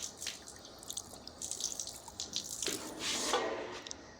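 Water running and splashing, loudest about three seconds in.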